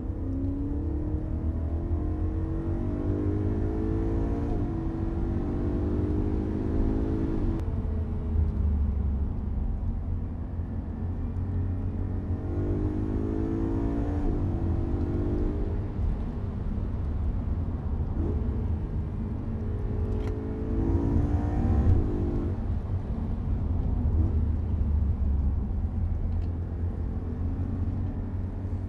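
A vehicle engine accelerating through the gears over a steady low rumble. Its pitch rises, drops suddenly at each shift and climbs again, several times over.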